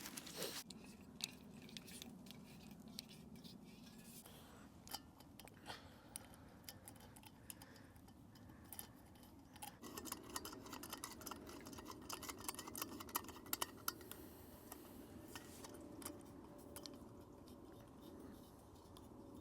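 A small camping gas stove being handled and set up, with many light clicks and knocks. About halfway through, a steady low hiss starts and holds: the burner running.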